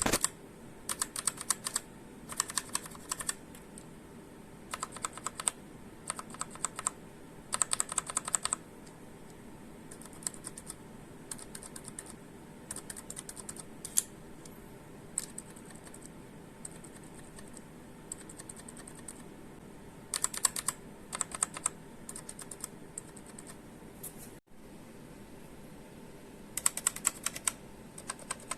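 Typing on a Redragon K550 Yama mechanical keyboard: short bursts of rapid key clicks separated by brief pauses, with two longer lulls in the second half.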